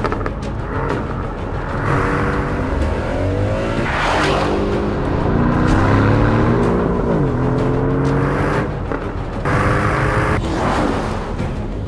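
Aston Martin DB11's twin-turbo V8 accelerating hard, its pitch climbing and then dropping sharply at upshifts about four and seven seconds in, and again near the end.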